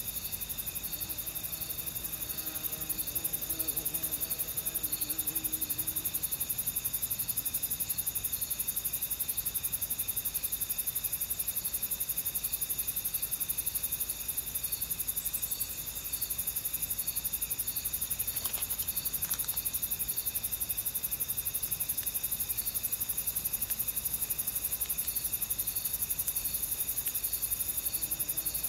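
Steady, high-pitched chorus of insects in a field, with a faint regular chirp pulsing through it. A low buzz sounds a few seconds in.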